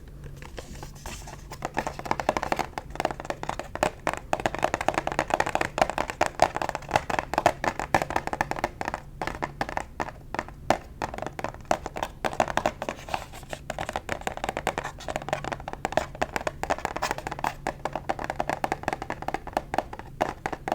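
Rapid, continuous fingertip and fingernail tapping on a face wash container, many light taps a second. It is sparse at first and becomes busy and louder about two seconds in.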